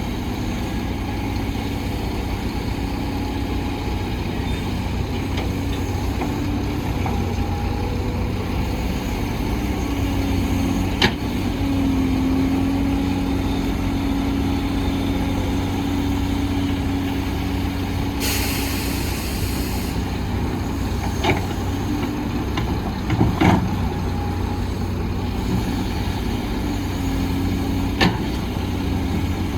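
Heavy diesel construction machinery running steadily, with several sharp metallic knocks and, about two-thirds of the way through, a two-second hiss of released air.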